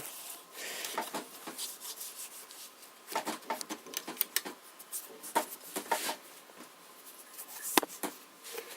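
Hands rubbing and handling the surface of an antique White Peerless sewing machine head: faint, irregular scraping with scattered light taps and clicks.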